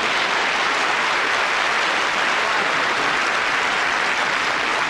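Studio audience applauding a comedy punchline, a dense, steady clapping.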